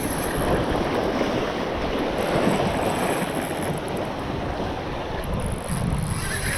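Wind buffeting the microphone over steady waves washing at the jetty.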